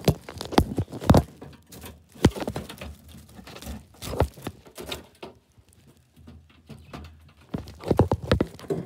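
A red squirrel scrambling frantically inside a wire-mesh live trap, its claws scraping and its body knocking against the wire, making irregular bursts of clicks, rattles and thumps. The bursts come thickest about a second in and again near the end, with a quieter spell between.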